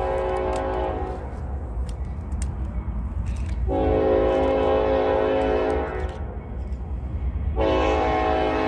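Locomotive air horn sounding in long blasts: one ends about a second in, another lasts about two seconds in the middle, and a third starts near the end, over a steady low rumble of the train.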